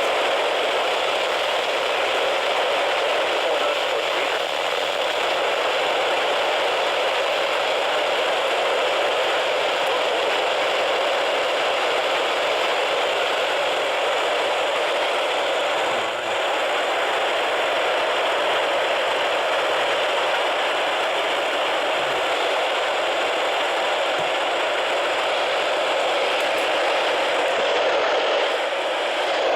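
Steady static hiss from a radio receiver tuned to a weak NOAA Weather Radio signal, with the broadcast lost under the noise.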